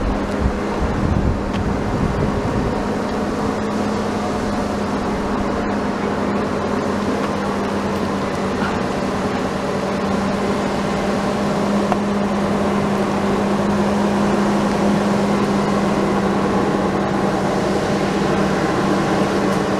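A heavy vehicle's engine running steadily, with a constant low hum under a wash of mechanical noise.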